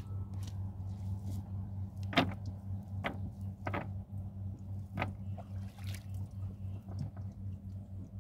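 A wet nylon cast net being handled on a wooden boat's planks: a few short, sharp watery clicks and splashes, the loudest about two seconds in, over a steady low hum.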